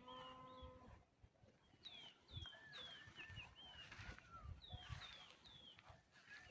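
Faint birdsong: short, falling whistled notes repeated over and over, with a brief low steady call in the first second.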